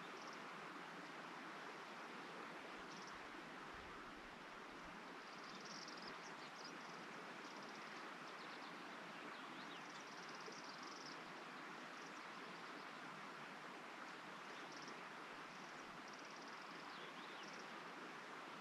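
Mountain meadow ambience: a faint, steady rushing hiss, with high, thin trilling calls of small creatures coming and going several times.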